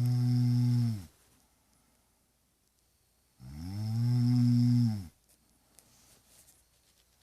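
Snoring: long, pitched, rasping snores, one ending about a second in and another about three and a half seconds in that lasts nearly two seconds, in a slow regular rhythm.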